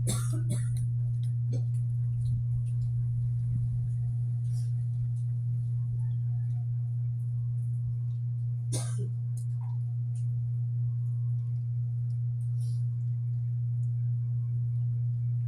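A steady low hum at an even level, with a couple of faint short clicks, one at the start and one about nine seconds in.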